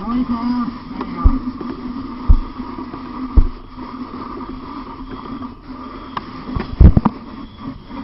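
Heavy dull thuds of a tool striking, at irregular intervals with a tight cluster near the end, over a steady drone.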